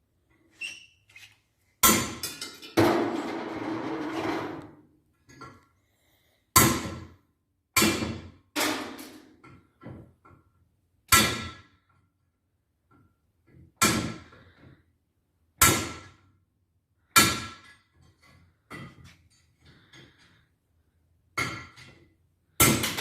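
Hammer blows on a steel driver tool set against a weld blob, knocking valve seat inserts out of a Chrysler 4.7 cylinder head. There are about a dozen sharp metallic strikes at uneven intervals. One, about three seconds in, is followed by a longer ringing rattle.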